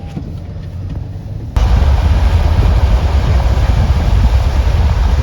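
Loud rush of wind buffeting the phone's microphone from the open window of a moving car, with a heavy low rumble; it starts suddenly about a second and a half in.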